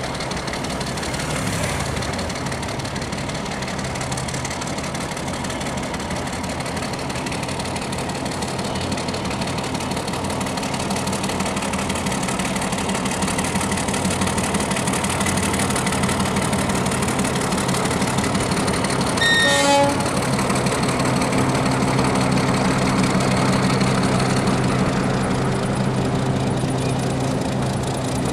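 Meter-gauge diesel locomotive running steadily under load as it hauls a passenger train, its engine drone growing louder as it draws nearer. A short horn toot sounds about two-thirds of the way through.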